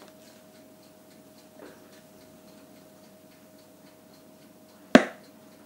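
A spatula knocking against metal cookware while cake batter is scraped out of the bowl: a soft knock about a second and a half in and one sharp, loud clack near the end. A faint, even ticking and a steady hum run underneath.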